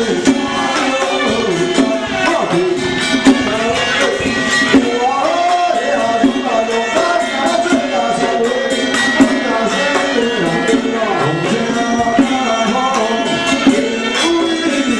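Traditional folk-style music: a wavering melody with frequent sharp percussion strikes.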